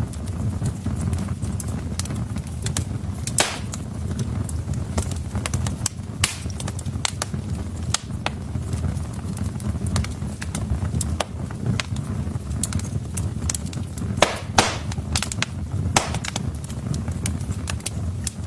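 Wood fire burning in a fireplace: irregular sharp crackles over a steady low rumble of the flames, with a few louder pops, a cluster of them near the middle-to-end.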